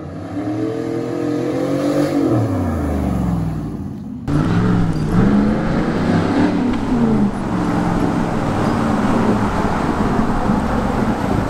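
Chevrolet Silverado pickup's exhaust, its third catalytic converter removed so it runs straight pipe back to the two remaining cats, revving and accelerating as the truck drives past. The engine note climbs and falls several times, with a choppier exhaust sound.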